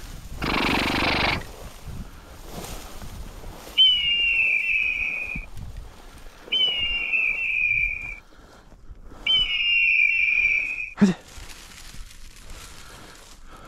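Three long, steady whistle blasts, each about a second and a half and starting with a slight upward flick: a hunter's whistle signalling his bird dog. A brief rustle comes at the start and a short sharp sound near the end.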